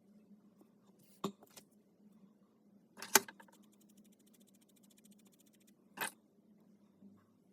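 A few sharp clacks of small hard objects being handled, the loudest about three seconds in and another near the end, over a faint steady low hum.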